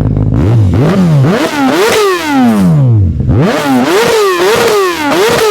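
Motorcycle engine revving: a run of quick throttle blips climbs in pitch, then the revs fall away in one long sweep. This happens twice.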